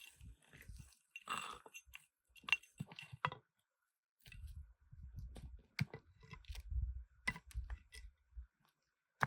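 Irregular light clinks and knocks of small hard objects being handled, with a short pause about four seconds in.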